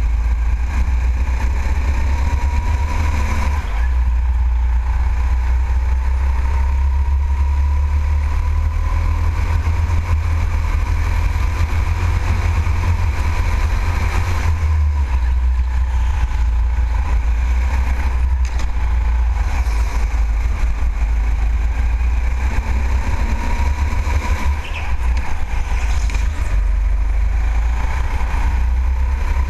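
Racing go-kart running at speed around an indoor track, its pitch rising and falling with the straights and corners, over a heavy low rumble on the onboard microphone.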